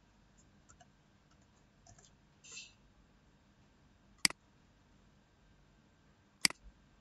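Two sharp computer mouse clicks about two seconds apart, the first a little past the middle and the second near the end, with a few faint soft ticks before them.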